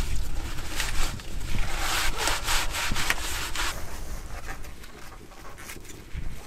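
A paper towel wiping oil around the inside of a metal cauldron, a run of quick scraping rubs that fades after about four seconds.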